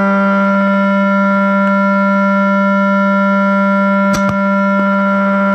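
Steady electronic drone: one held tone with several overtones, unchanging in pitch, with two sharp clicks about four seconds in.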